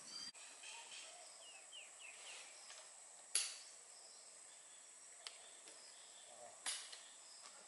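Rural outdoor ambience: a steady high insect buzz with a few short bird chirps. It is broken twice by a sharp clack, the loudest sounds, about three and a half and nearly seven seconds in.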